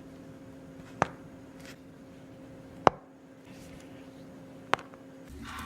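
Three sharp joint cracks about two seconds apart, the cavitation pops of a chiropractic adjustment, over a steady low electrical hum that cuts off near the end.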